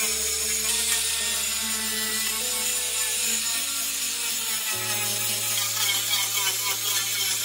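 Electric angle grinder with a disc grinding paint off a car's sheet-metal door panel, a steady high grinding hiss. Low sustained tones under it change pitch in steps near the start and about two-thirds of the way in, like background music.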